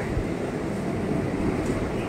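EMU local train carriages rolling past along a platform, with a steady rumble of wheels and running gear.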